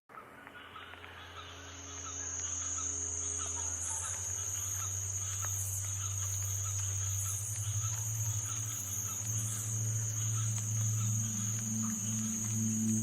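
A steady high, cricket-like trill over a low droning hum, fading in over about two seconds: the opening of an ambient background music track.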